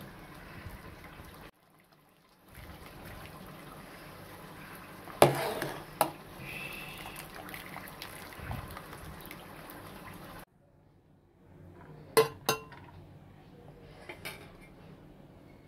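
Metal slotted skimmer clanking against an aluminium pot as parboiled rice is lifted out of its cooking water, with water splashing and draining back into the pot. A few sharp clanks come in pairs, about a third of the way in and again a little past the middle.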